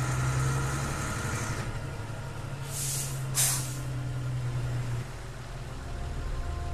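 A low, steady engine hum with two short, loud hisses about three seconds in. The hum drops away about five seconds in, and soft music comes in near the end.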